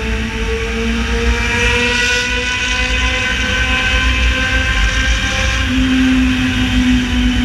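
Yamaha XJ6 Diversion's 600 cc inline-four running loud on the road, its pitch sinking slowly over the first few seconds and then holding steady, over a low rumble.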